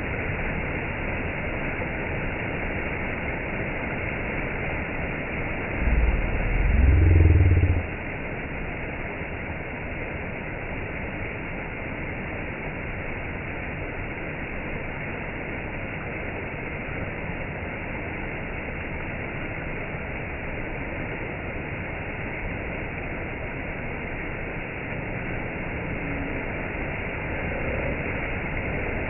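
Small stream cascading over rocks: a steady rush of falling water. About six seconds in, a brief, loud low rumble rises over it for about two seconds.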